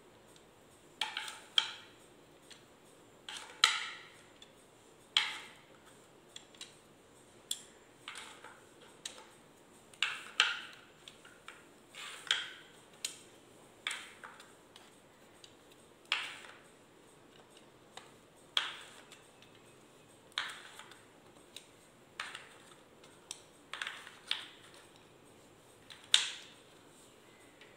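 Grey subtraction-board strips being laid one by one into their tray: a string of short, sharp clacks, roughly one a second and irregularly spaced.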